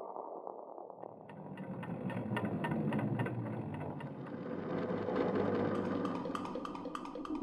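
Sound-design score: a steady low hum with a fast run of soft ticks laid over it. It fades in about a second in and swells twice.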